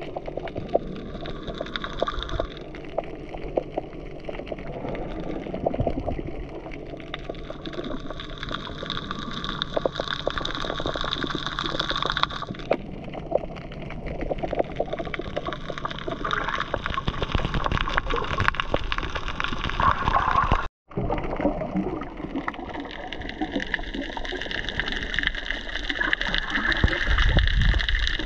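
Underwater sound picked up by a submerged camera: a gurgling, sloshing water hiss with many fine crackling clicks, and a faint tone that slides down in pitch several times. The sound drops out completely for a split second about two-thirds of the way through.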